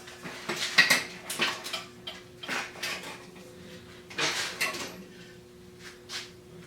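Metal tools and parts clinking and scraping irregularly as the wheel axle of a McLane edger is worked on, with a cluster of knocks in the first couple of seconds and another about four seconds in.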